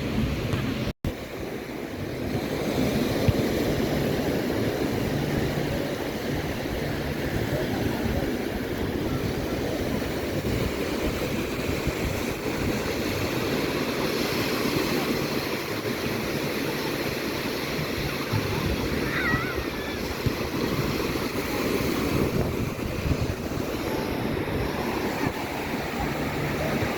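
Ocean surf washing steadily onto a beach, with a momentary dropout to silence about a second in.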